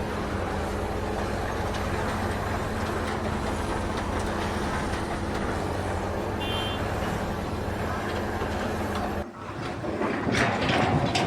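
A heavy vehicle engine running steadily. About nine seconds in it cuts off, and louder knocks and clatter follow.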